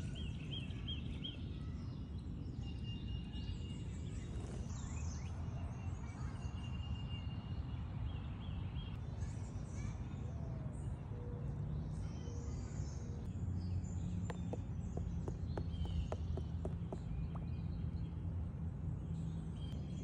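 Outdoor ambience: a steady low rumble with faint, scattered bird chirps, and a few light clicks in the second half.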